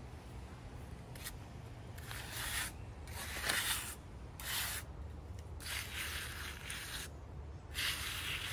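Hand trowel scraping across wet concrete as it is smoothed and levelled in a border form: about six rasping strokes, each under a second, beginning about two seconds in.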